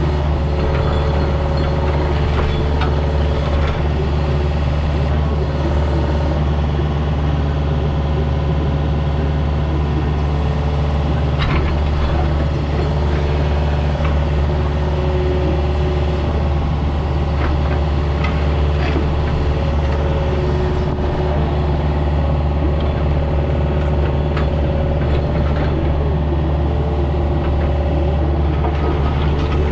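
Compact excavator's diesel engine running steadily under work, with a few short knocks now and then.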